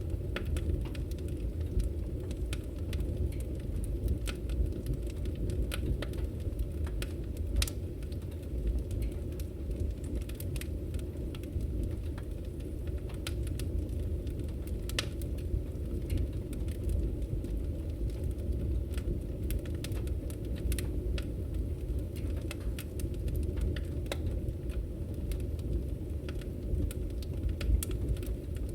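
Open wood fire burning with a steady low rumble and irregular sharp crackles and pops.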